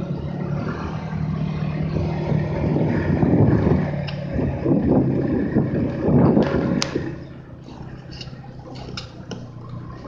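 Snowmobile engine running with a steady low drone and rough noise; it drops away about seven seconds in, leaving scattered sharp clicks.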